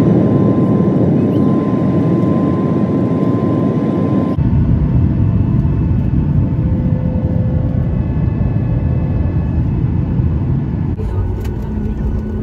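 Jet engine and airflow noise of a Ryanair Boeing 737 heard inside the cabin in flight, a dense steady rush with a thin high whine over it. About four seconds in it cuts abruptly to a deeper, lower cabin rumble.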